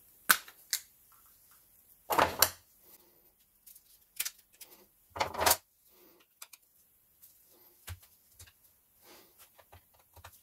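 Plastic diesel fuel filter housing being handled and worked apart with screwdrivers: sharp clicks and taps, with two longer, louder knocks about two and five seconds in.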